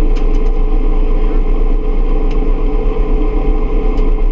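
Bell UH-1 Huey helicopter running steadily, its turbine and rotor heard from on board, with a deep hum and a steady whine and a few faint clicks.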